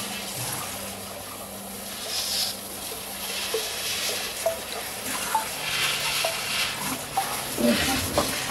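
A kitchen faucet runs on and off into a stainless steel sink as small plastic plant pots are rinsed, with light knocks and clunks of the pots against the sink. The hiss of the water comes and goes, and the knocks are heaviest near the end.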